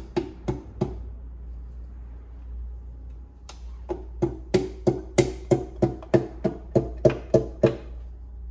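The end of a hammer handle tapping a piston down through a ring compressor into a cylinder of a four-cylinder engine block, driving the compressed rings into the bore. There are three taps, a pause of about two and a half seconds, then a steady run of about three taps a second, each with a short ringing note.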